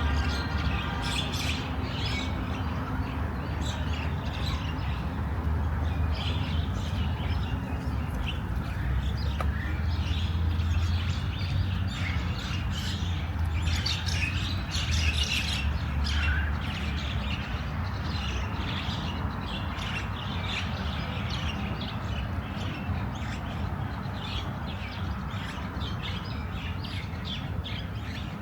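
Many small birds chirping and calling at once in park trees, short overlapping chirps with no break. Under them runs a low steady rumble that eases off after about half way.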